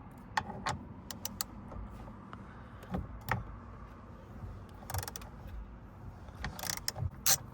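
Hand ratchet with an extended socket loosening the bolt that holds the steering wheel, giving irregular metallic clicks. There is a quick run of clicks in the first second and a half, then a few scattered ones, and a louder cluster near the end.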